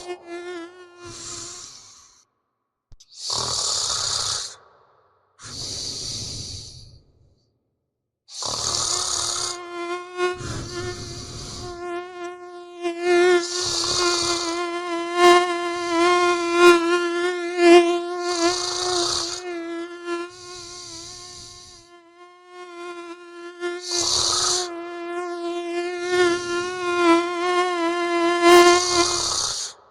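A mosquito's high whine, one steady wavering tone with overtones that swells louder and fades as if the insect comes close and drifts off, over a person's snoring breaths every second or two. The whine drops out briefly about seven seconds in, then returns.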